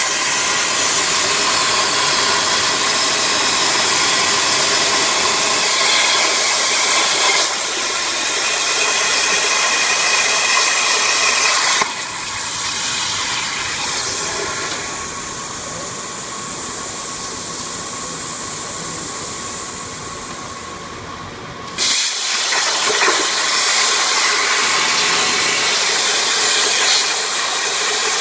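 CNC plasma cutting torch arc hissing loudly and steadily. It cuts out about twelve seconds in, leaving a softer hiss, and restarts with a sudden bang about ten seconds later.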